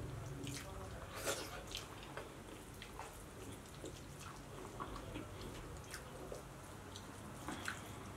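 Close-miked chewing and wet mouth sounds of people eating egg biryani with their hands: an irregular scatter of small smacks and clicks, one louder about a second in.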